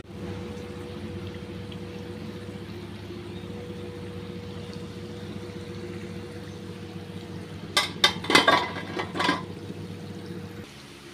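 Thenkuzhal (rice-flour murukku) deep-frying in hot oil in a steel pot: a steady sizzle over a low hum. A few sharp clinks come about eight to nine seconds in as the fried pieces are lifted out.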